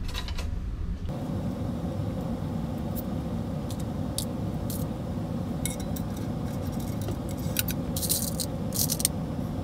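Small metal screws and hardware jingling and clicking in plastic parts bins as a hand picks through them, with a cluster of clinks near the end, over a steady low hum.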